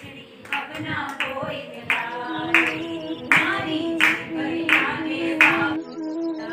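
People singing a devotional bhajan together, kept in time by steady hand-clapping, about three claps every two seconds.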